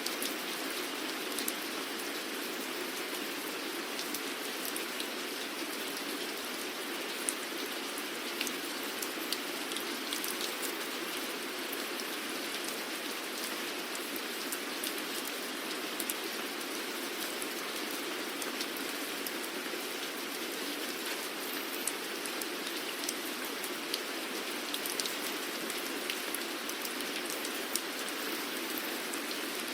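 Steady rain falling, an even hiss with many individual drops pattering and ticking on a surface throughout.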